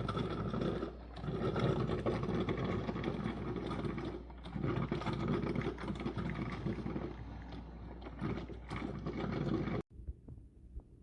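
Ninja 12-cup drip coffee maker gurgling and sputtering as it brews, in irregular surges every second or two over a low hum. It cuts off abruptly near the end, leaving only a faint hum.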